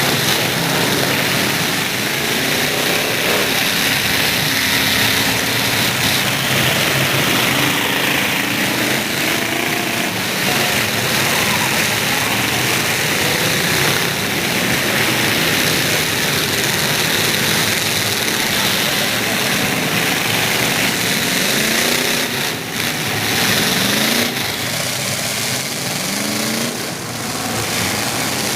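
Several demolition derby trucks' engines running and revving, their pitch rising and falling again and again over a loud, continuous din.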